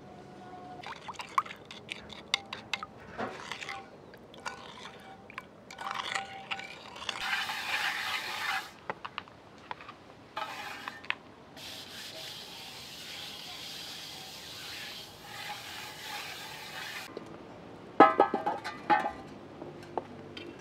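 A spoon clinking and scraping in a porcelain bowl as lime juice is mixed. Then water runs from a garden hose with a steady hiss while a soapy pot is rinsed. Near the end comes a short burst of metallic clatter.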